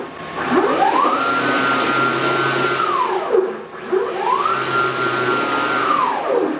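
The greenBull CNC router's stepper motors driving the gantry along the table: a whine that rises in pitch as the axis speeds up, holds steady, then falls as it slows, twice over, in a test of the machine's travel after wiring.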